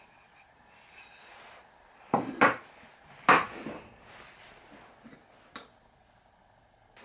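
Pieces of pine handled and set down on a wooden workbench: sharp wooden knocks, two close together about two seconds in and the loudest a little over three seconds in, then a couple of light taps.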